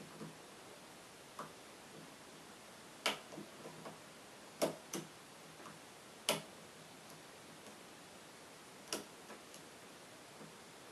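Metal clicks of a lock pick and tension wrench working the pins of a VITA 5-pin euro cylinder lock during single-pin picking: a few sharp clicks at irregular intervals with fainter ticks between.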